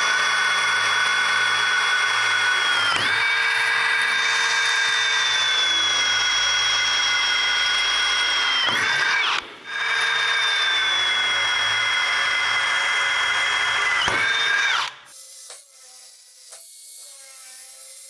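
Handheld power drill with a 3/16-inch bit boring pilot holes through the mower's mounting bar, a steady high whine. It dips briefly about three seconds in, slows and stops around nine seconds, then runs again, slowing before it stops about fifteen seconds in.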